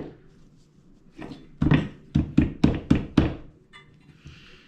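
A quick series of about seven sharp knocks over two seconds as the new blower fan is pushed and tapped down onto the blower motor's shaft to seat it snugly.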